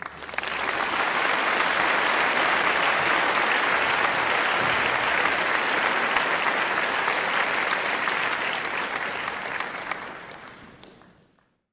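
An audience applauding, a dense steady clapping that fades away near the end.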